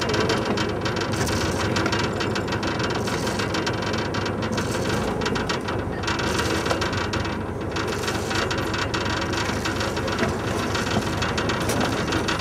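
Hand winch ratchet clicking rapidly and continuously as a sailing barge's gaff sail is hoisted, over a steady low rumble.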